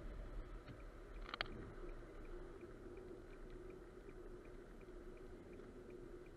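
Car cabin noise while driving on an expressway: a steady low tyre and engine rumble with a constant hum. A single sharp click comes about a second and a half in, and a faint, regular ticking about three times a second follows it.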